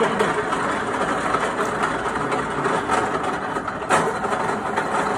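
Heavy-duty 38 mm pillar drilling machine running, its spindle turning a large twist drill, with a steady, dense mechanical noise. A sharp knock comes about four seconds in.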